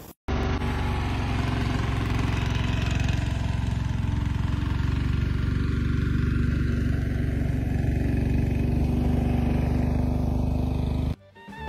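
A small engine running steadily at one constant speed, starting abruptly just after a cut and cutting off abruptly near the end.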